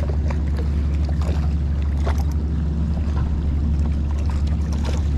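A boat's engine runs at a steady low hum, with scattered light knocks and clicks over it.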